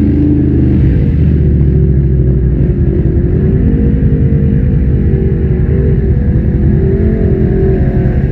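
Off-road vehicle engine driven hard through deep mud and water, its pitch rising and falling as the throttle is worked.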